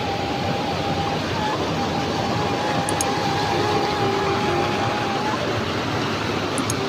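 Steady vehicle running noise, an even rush with a thin, steady whine held over it.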